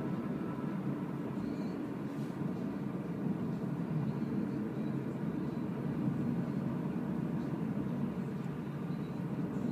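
Steady, low road and tyre noise inside the cabin of a Renault ZOE electric car driving on asphalt, with no engine note.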